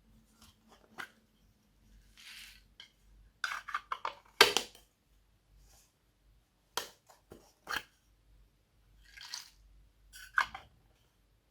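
Glossy slime being squished and pressed by hand, giving scattered sharp wet clicks and pops and a few soft squelching hisses. The loudest pop comes about four and a half seconds in.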